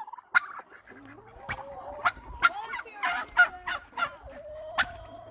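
Chickens and young turkeys calling in a coop: a string of short, sharp clucks and notes, then one long, steady call near the end.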